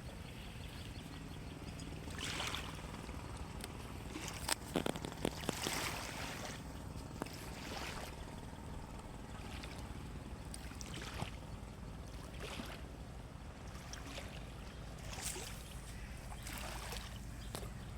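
Water splashing and swishing in short bursts every few seconds, with a few clicks about five seconds in, over a steady low hum.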